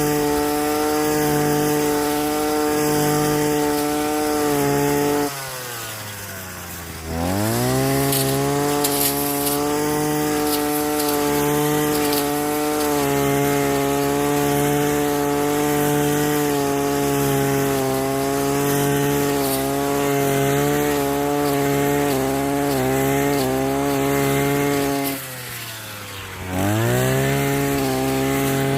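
Small two-stroke engine of a handheld power tool running at full throttle. About five seconds in the throttle is let off, so the pitch falls and then rises again as it revs back up. This happens once more near the end, and the pitch wavers briefly a few seconds before that, as if the engine is bogging under load.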